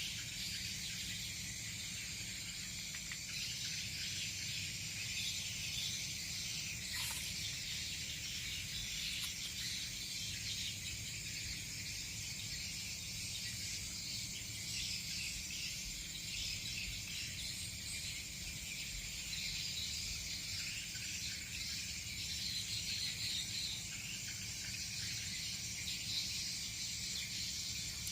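Insects chirring steadily in a continuous high, shimmering chorus over a low background rumble.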